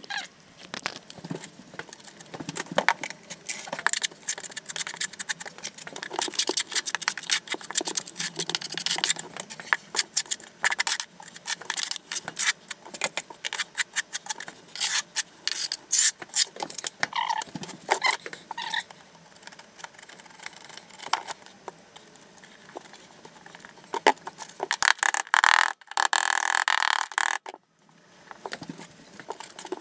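Steel V-notched trowel scraping and combing thinset mortar across a wall, a run of irregular rasping scrapes and clicks, broken briefly near the end.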